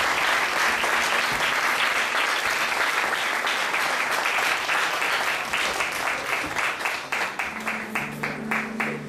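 Congregation applauding: dense clapping for about six seconds, then thinning out to a few people clapping an even beat. Music starts softly near the end.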